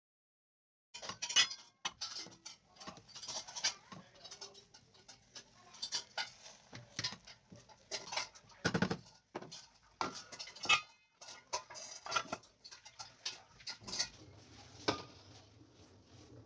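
A wooden spoon knocks and scrapes in a metal pot as rice is stirred, with clinks of a steel pot lid: many irregular short clicks and knocks and one heavier knock near the middle.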